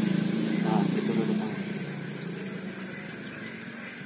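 A low droning engine, loudest in the first second and a half and then easing off but still running, under two steady high-pitched tones of night insects.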